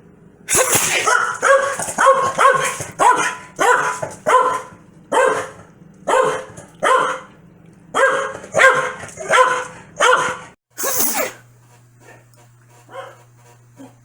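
Corgi barking angrily in a rapid run of about fifteen sharp barks over some ten seconds, ending with one harsher, noisier burst about eleven seconds in before it stops.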